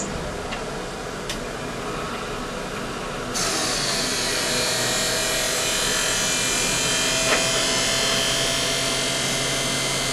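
Bench-top skate sharpening machine switching on about three seconds in and running steadily, its grinding wheel giving a high, even whine and hiss as it sharpens a hockey skate blade.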